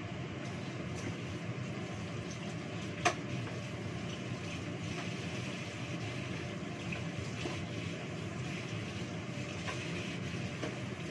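Water running from a kitchen tap into a metal sink while something is washed by hand, with one sharp knock about three seconds in.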